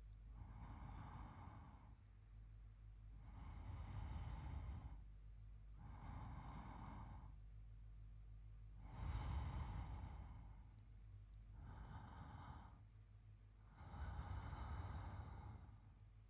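A man's slow sleep breathing close to the microphone: quiet, even breaths every two to three seconds, swelling and fading, with the strongest breath about nine seconds in.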